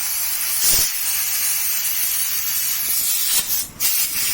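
Compressed air hissing steadily from an air line into a new tubeless scooter tyre, with a brief surge near the start and a short cut-off about three and a half seconds in. The new tyre does not fill at once, typical of a bead that has not yet sealed on the rim.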